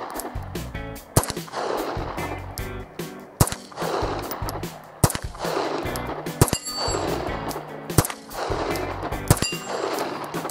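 Star Super B 9mm pistol fired in single shots, six or seven in all, roughly one every one and a half to two seconds, over background music.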